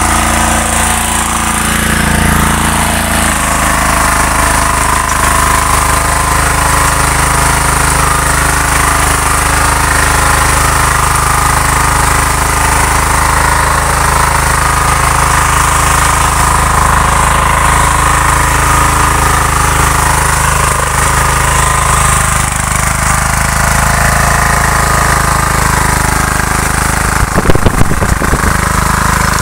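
Small single-cylinder engine of a walk-behind power weeder running steadily under load as its rotary tines churn dry soil. A short run of loud knocks comes near the end.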